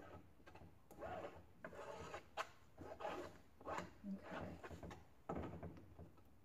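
A series of soft, short rubbing and scraping sounds, about one or two a second, from gloved hands handling things at the table.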